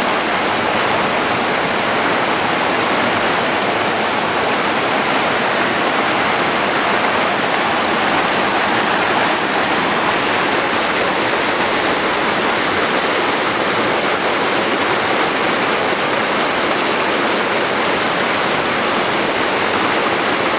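Creek rapids rushing: a loud, steady roar of whitewater over a rocky riffle, the creek running higher than normal.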